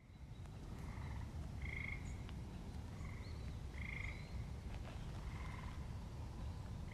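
Frogs calling: short trilled calls repeated every second or so, over a steady low rumble, fading in at the start. A faint bird chirp about three seconds in.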